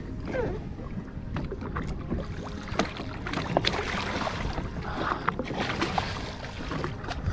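Water sloshing and splashing against the hull of a jet ski on open sea, with wind on the microphone and scattered sharp clicks and knocks.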